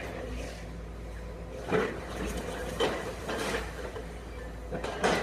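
Excavator engine running steadily while the machine demolishes a building, with about four sharp knocks and crashes of breaking masonry and debris at irregular intervals.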